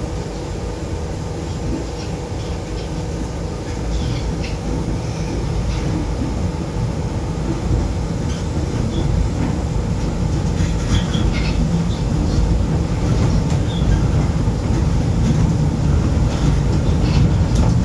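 Moscow Monorail train heard from inside the car while moving, running on rubber tyres along its concrete beam: a steady rumble with a faint hum and scattered light clicks and creaks, growing gradually louder.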